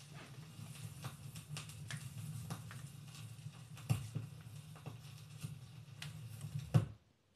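Record player's stylus riding the inner run-out groove of a vinyl record after the music has ended: a low hum with surface crackle and scattered clicks, one louder click near the end, then the sound cuts off suddenly.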